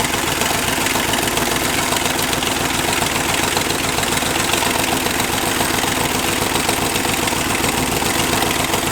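283 small-block Chevy V8 running on only one cylinder head, so firing on four cylinders, idling steadily at low idle with the choke held.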